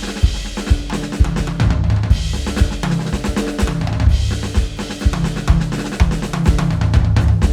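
Drum-driven music: a drum kit keeps a steady beat with a kick drum about twice a second, snare and cymbals, over a sustained bass line.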